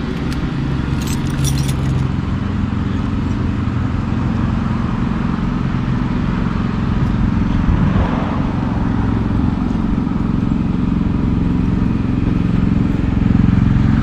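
A steady, low engine-like hum, with a few light metallic jingles like keys about a second in.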